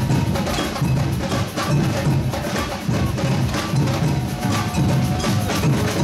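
Carnival parade percussion band drumming a steady rhythm: deep drum beats about twice a second with sharp clacking strokes on top.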